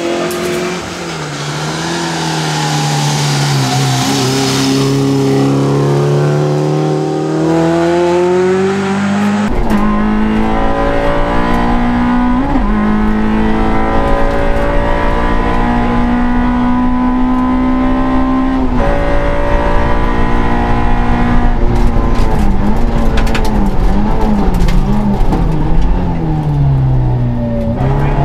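Suzuki Swift rally car's engine at full throttle on gravel. First it comes toward the car-side microphone with a spray of gravel. From about a third of the way in it is heard from inside the cabin, revving high with short breaks at the gear changes. Near the end the revs fall and bob up and down as the car brakes and shifts down.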